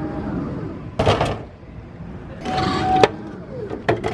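Elevator-type drinks vending machine delivering a plastic water bottle: a burst of mechanical noise about a second in, then a motor whirring with a steady hum as the lift carries the bottle down. Near the end come a few sharp clicks and a clunk as the delivery flap is pushed open.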